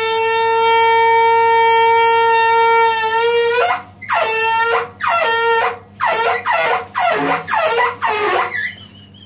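Combi boiler water filling tap honking as water is let in: one long, steady horn-like tone, then a string of about six shorter wavering hoots, the last ones sliding down in pitch. The noise comes from water pressure at a faulty filling tap, and replacing the tap stops it.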